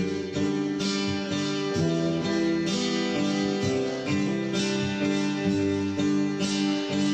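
Strummed acoustic guitar playing chords in a steady rhythm, with no singing.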